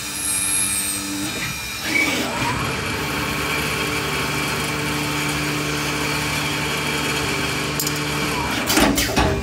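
CNC lathe machining brass bar stock: spindle and cutting run steadily, with the pitch gliding and shifting as the spindle changes speed about two seconds in. A few sharp clunks come near the end, as the finished part comes off.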